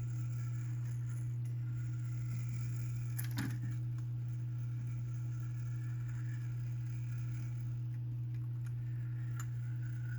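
A steady low hum, with the faint fading ring of a grandfather clock movement's gong rods after striking and one sharp metallic click about three seconds in.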